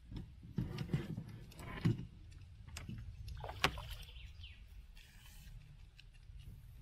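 Knocks and clatter of fishing gear handled in a small boat as a landing net is picked up, with a sharp click about three and a half seconds in.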